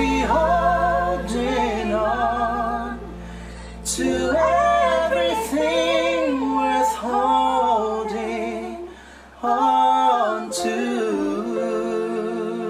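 A woman and a man singing a slow ballad duet over a backing accompaniment of low sustained notes, holding long notes with vibrato, with two short breaths between phrases.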